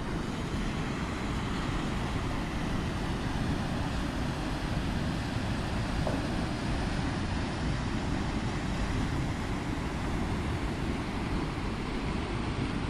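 Steady rushing roar of a fast river pouring through a narrow rock gorge.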